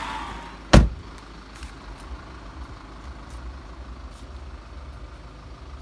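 A BMW car door slammed shut once with a single heavy thud, followed by a low steady rumble with a few faint ticks.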